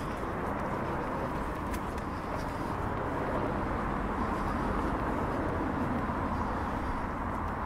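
Steady city street traffic noise, a car engine running close by, swelling slightly around the middle.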